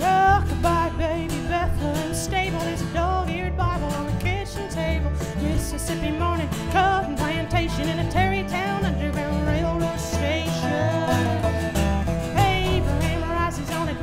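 Live acoustic band: a woman singing lead over strummed acoustic guitar, resonator guitar and upright bass.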